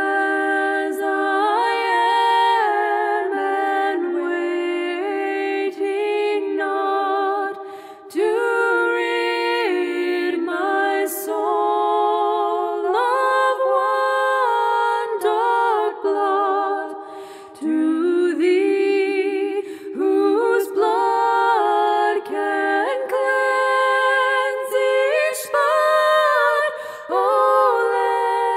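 Background music of unaccompanied singing voices, in phrases of held notes with a wavering pitch and short breaks between them.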